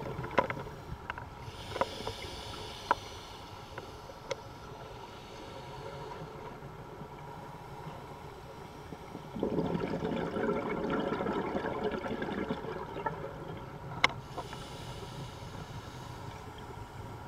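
Scuba diver's breathing through a regulator underwater. There is a hissing inhale about two seconds in, then a long gurgle of exhaled bubbles starting about nine and a half seconds in, with a few sharp clicks and knocks scattered through.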